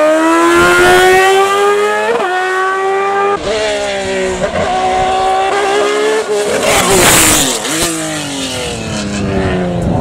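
A car-cross buggy's engine revs up hard to a gear change, then a single-seater race car's engine rises and falls through several gear changes as it climbs and brakes for bends. Near the middle of the second run there is a brief burst of noise.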